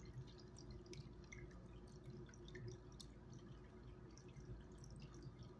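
Near silence: a faint steady low hum with a few soft, scattered clicks.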